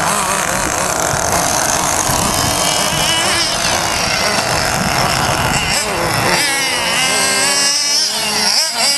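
Radio-controlled off-road buggies racing, their small engines buzzing at high revs and rising and falling in pitch as they accelerate and brake, with the revving changes busiest in the last few seconds.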